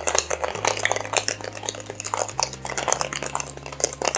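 Ice rattling hard inside a two-piece metal cocktail shaker as it is shaken: a fast, continuous clatter of ice against the tins.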